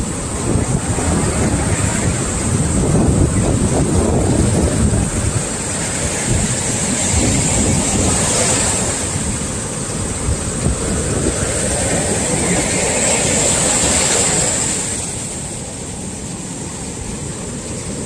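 Sea swell waves breaking and rushing up a beach, surging several times and easing off near the end.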